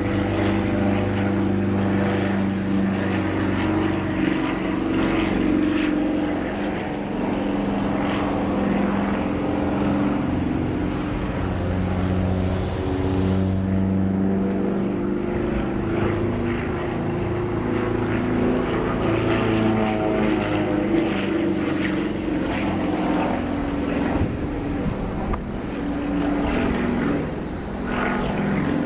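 Propeller airplane's piston engine running steadily in flight, its pitch wavering and bending slightly up and down.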